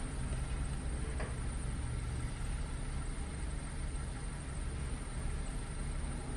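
Car engine idling with a steady low hum, heard from inside the car's cabin, with a faint click about a second in.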